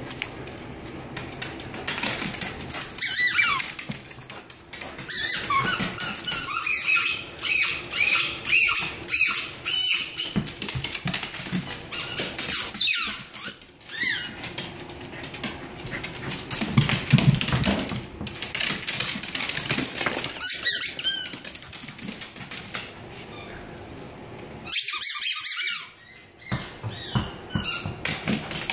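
Squeaky tennis balls squeaking again and again in clusters of quick squeaks as a Scottish terrier bites and chews them.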